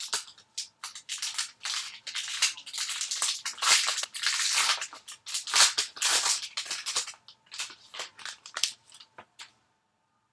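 Foil trading-card pack wrapper being opened and crinkled by hand: dense crackling through the middle, thinning to a few separate crinkles and stopping about a second before the end.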